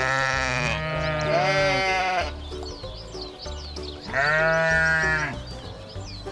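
Sheep bleating: three long bleats, two close together and then one more after a pause of about two seconds, over background music with a steady low beat.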